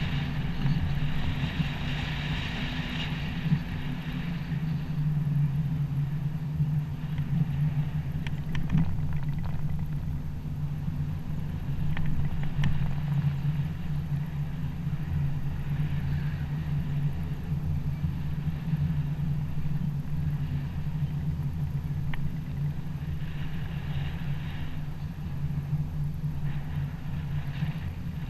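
A car driving along a road: a steady low drone of engine and road noise, with a hiss that swells and fades and a few sharp knocks.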